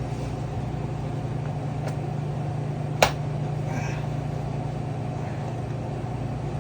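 Steady low machine hum, with a single sharp click about three seconds in.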